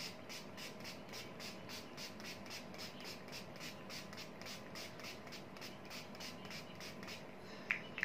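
Mist spray bottle of rose water spritzed rapidly and repeatedly at the face, about four to five short hissing puffs a second, stopping shortly before the end.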